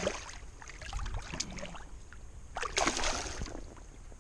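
River water splashing and sloshing as a hand in the shallows releases a bass. There is a short burst of splashing at the start and a longer one about two and a half seconds in.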